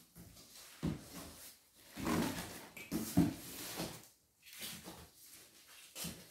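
Cardboard shipping box being opened by hand: flaps pulled back and packing inside rubbed and shifted, in irregular scraping rustles with a couple of sharp knocks.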